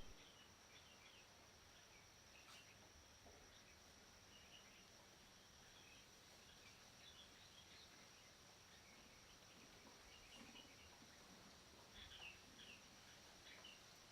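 Near silence of forest ambience: faint scattered chirps of small birds and a steady high insect whine, the chirps coming a little more often near the end.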